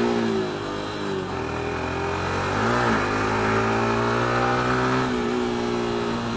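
Loud single-cylinder 150 cc Yamaha FZ engine with a modified exhaust, running under way on the road. Its note dips and recovers briefly about three seconds in, then steps down in pitch about five seconds in.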